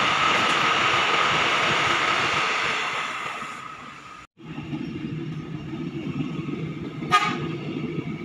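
Electric commuter trains (KRL Commuter Line EMUs) running past on the track: first a loud passing train with a steady whine over the running noise. After a break about four seconds in comes a lower rumble of another train rolling by, with one short high sound near the end.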